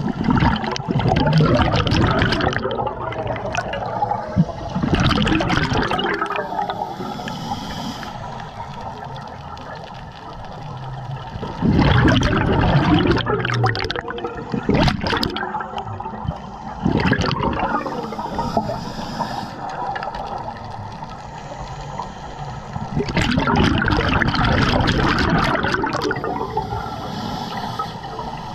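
Scuba diver breathing through a regulator underwater: loud gushes of exhaled bubbles every few seconds, with quieter stretches and a faint hiss between them.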